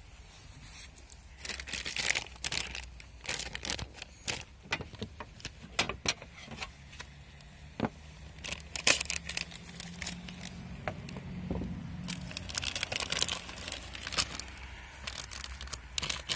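Clear plastic bag crinkling and rustling in two dense bursts, with many scattered clicks and crackles, as a new rubber turbo intake hose is handled in its packaging. A low steady hum sits underneath for a few seconds midway.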